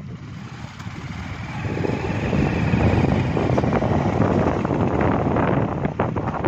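Motorcycles riding along a rough lane: engine noise mixed with wind rushing over the microphone, growing louder about two seconds in.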